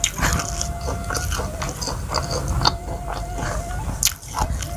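Close-miked chewing of a mouthful of raw leafy greens with rice: irregular wet clicks and light crunches. Under it runs a faint background melody on a Sundanese suling bamboo flute.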